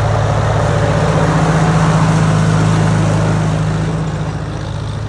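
1950 Farmall M tractor's four-cylinder engine running steadily as it drives, with a low, even engine note that fades somewhat near the end.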